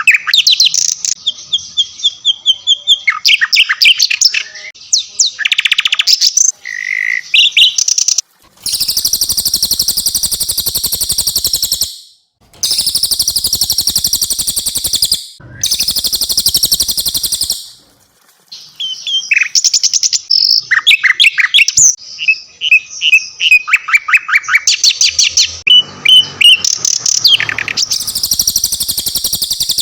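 Cililin and sikatan londo songbirds singing in turn, as in a birdsong tutor recording. Rapid runs of high chirps, whistles and slurred notes alternate with long, very fast, buzzy trills lasting two to three seconds each, several times over.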